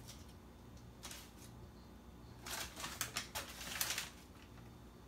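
Brown paper wrapping rustling and crinkling as it is handled: a brief crinkle about a second in, then a longer spell of crackly rustling in the middle.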